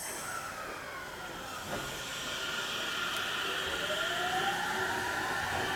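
Aichi Loop Railway 2000 series electric train pulling away from the platform. A hiss at the start, then the traction motors' whine rises steadily in pitch from about three and a half seconds in as the train accelerates.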